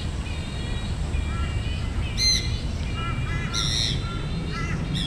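Several birds calling: short chirping notes repeat throughout, with two loud harsh calls about two and three and a half seconds in, over a low steady rumble.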